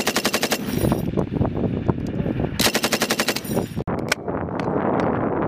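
Bursts of automatic fire from a 7.62 mm M240B machine gun: a rapid, evenly spaced burst ending about half a second in, scattered shots, and a second burst of about a second near the middle. A steady rushing noise follows for the last second or so.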